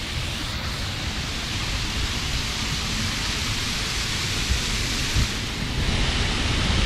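Water sheeting down a tall tiled cone fountain and splashing into its pool: a steady rushing hiss.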